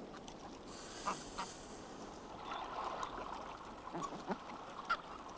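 Greylag geese giving a few faint, short honking calls.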